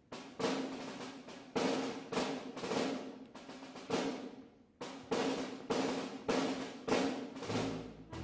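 Live chamber-ensemble music opening on solo percussion: a drum struck in an uneven rhythm of about two strokes a second, each stroke ringing out. Low pitched notes from the ensemble come in near the end.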